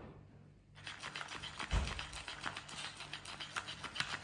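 Pressure-activated electric flopping fish cat toy wiggling, its tail slapping quickly and evenly on the floor. The tapping starts about a second in, and there is one dull thump just before two seconds.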